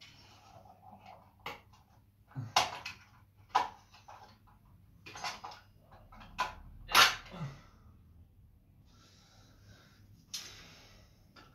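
Irregular sharp plastic clicks and knocks, about half a dozen spread a second or so apart, as clip-on plastic cover plates are pressed into a wall-mounted TV bracket arm, with faint rustling between them.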